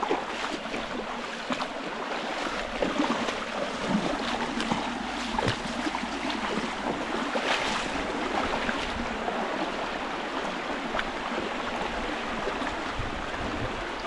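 Steady rush of falling water from a waterfall, with a few faint ticks over it.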